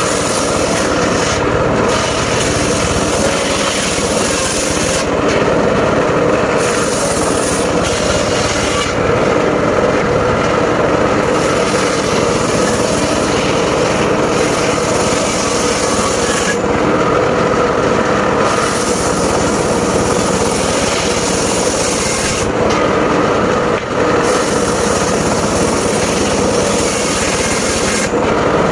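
Circular saw blade of a mobile sawmill running steadily through timber. Its high hiss drops away briefly several times along the way.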